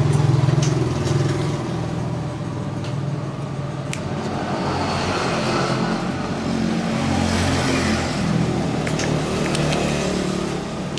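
Motor vehicle engines running and passing, their pitch shifting, with a few light clicks and taps.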